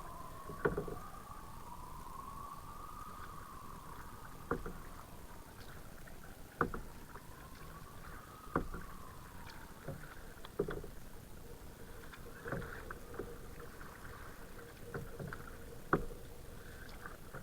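Kayak being paddled, with a knock and splash from a paddle stroke about every two seconds over steady water noise. In the first half a faint tone slowly rises and falls.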